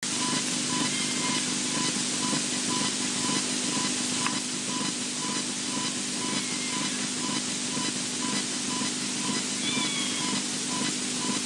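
Electrical interference on a wildlife nest-camera's audio feed: a steady static hiss with a low hum and a beep pulsing two to three times a second. Over it there are a few faint, brief whistling calls from an unidentified creature, clearest about ten seconds in.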